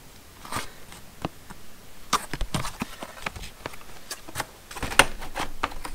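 Stiff clear plastic blister packaging crackling and clicking as it is handled and turned over in the hands. The clicks come scattered and irregular, with louder clusters about two seconds in and near the end.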